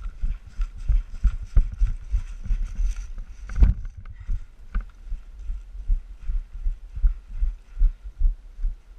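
Low rhythmic thumps, about two a second, with one louder knock a few seconds in: the footfalls of someone walking, jolting a body-worn action camera.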